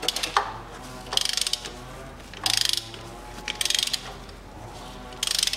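Ratchet wrench clicking in about five short bursts as it is swung back and forth on a seized spark plug, rocking the plug loose bit by bit rather than forcing it.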